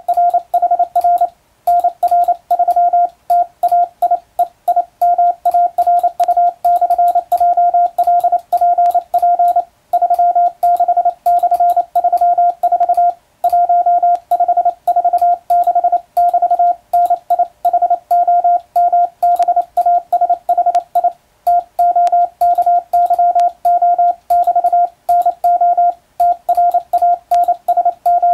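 International Morse code sent with an electronic keyer: a single-pitch tone keyed rapidly on and off in crisp dots and dashes, with a few brief pauses between words.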